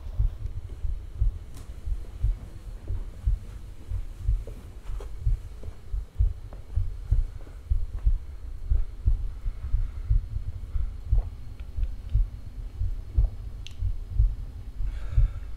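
Heartbeat sound effect: a steady run of deep, low beats.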